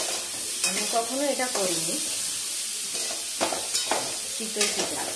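Food frying in a pan with a steady sizzle, and a few sharp clicks of a spoon stirring in it.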